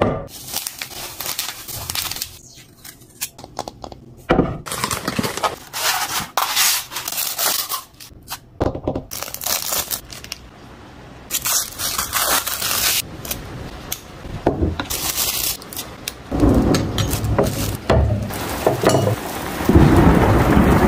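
Packaging being handled: plastic wrap crinkling and tearing, and items scraping and squeaking out of cardboard and foam, in irregular bursts. Near the end a dense rushing, rumbling noise comes in and grows louder.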